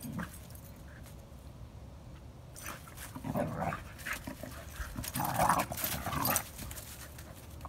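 Two dogs at rough play, making dog noises and scuffling through dry leaves. The sound comes in two louder spells, about three seconds in and again around five to six seconds in, the second one the loudest.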